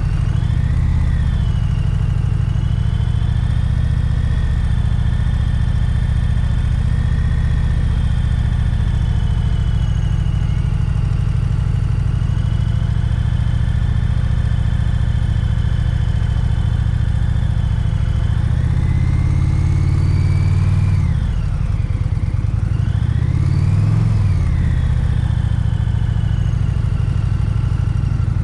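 Indian Pursuit touring motorcycle's V-twin engine running at low speed as the bike rolls along slowly, heard from the rider's seat. About two-thirds of the way through, the pitch dips and rises a few times.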